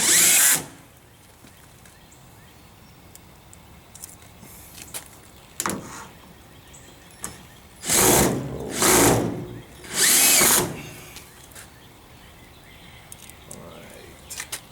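Power drill running in four short bursts of about half a second each: one right at the start, then three close together about eight to ten and a half seconds in.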